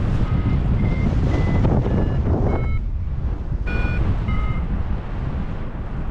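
Paraglider's variometer beeping: a scattered run of short beeps at shifting pitches, thickest in the first three seconds and again around four seconds in. Loud wind noise rushes on the microphone throughout and is louder than the beeps.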